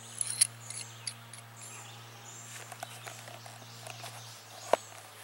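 Quiet outdoor ambience: high bird and insect chirps over a low steady hum that stops about four seconds in, with a few sharp clicks and taps from handling the diamond sharpening rod and knife, the loudest just after the start and near the end.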